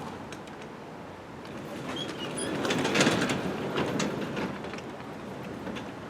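Old wooden sectional garage door moved by hand along its tracks, the rollers rumbling and clunking with a few short squeaks; the rolling noise builds to its loudest about three seconds in, then eases.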